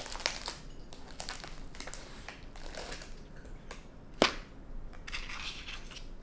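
Raccoon crunching Parmesan Goldfish crackers and rummaging through them in a plastic bowl: scattered crisp crackles and small clicks, with one sharp click a little after four seconds in.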